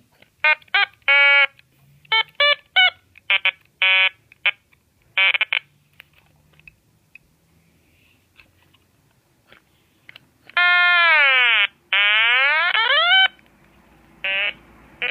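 Otamatone being played: a string of short buzzy notes at different pitches, then after a pause a few long notes that slide down in pitch, followed by two more short notes near the end.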